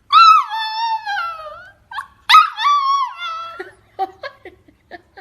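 A dog howling: two long, high, wavering howls that fall in pitch, then a string of short whimpering yips.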